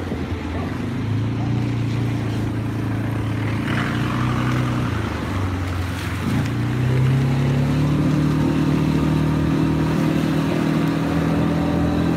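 Quad bike engine running under way. It eases off about five to six seconds in, then picks up and holds at a higher pitch as the bike speeds up.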